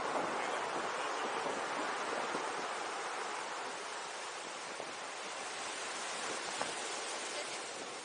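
Ocean surf breaking on a rocky shore: a steady wash of waves, easing a little in loudness over the few seconds.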